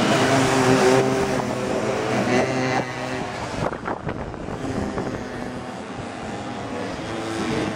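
Small two-stroke minimoto (pocket bike) engines buzzing at high revs as racers pass close by; loudest in the first second or so, dropping off about three seconds in to a quieter buzz of bikes further round the circuit.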